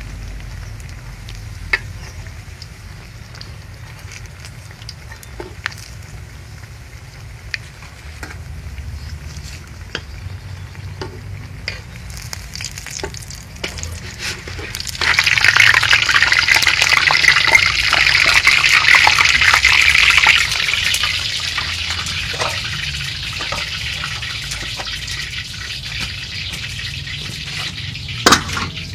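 Battered breadfruit slices frying in hot oil. A light crackling becomes suddenly loud sizzling about halfway through, stays loud for several seconds, then eases to a steadier sizzle with scattered pops.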